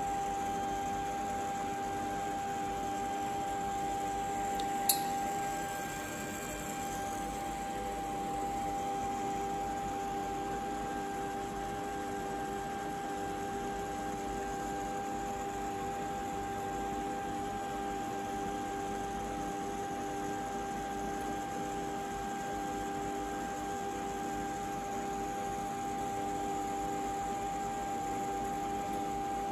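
Steady electrical hum with a constant mid-pitched tone over it, unchanging throughout, and a single sharp click about five seconds in.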